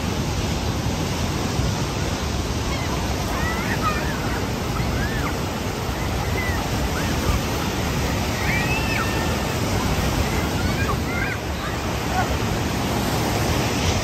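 Ocean surf breaking and washing up the shore, a steady wash of noise, with faint distant voices of people calling out now and then.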